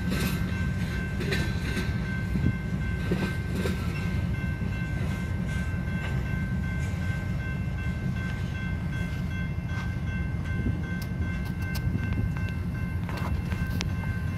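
Freight train of covered hopper cars rolling slowly through a grade crossing: a steady low rumble with scattered clicks of wheels over the rail joints, and a steady high-pitched ringing over it.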